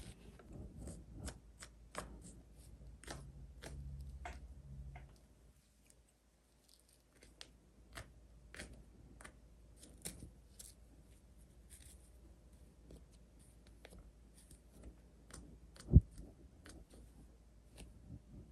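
Small plastic toy pieces being handled and set down: a string of light clicks and taps, with a low hum over the first five seconds and one much louder knock about 16 seconds in.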